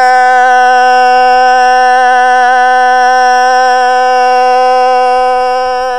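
A singer holding one long note in Hmong kwv txhiaj sung poetry, steady in pitch with a slight waver and easing off near the end.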